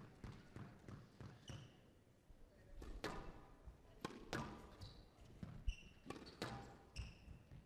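Squash rally on a glass court: the ball cracking off rackets and walls every second or so, with short squeaks of shoes on the court floor between the hits.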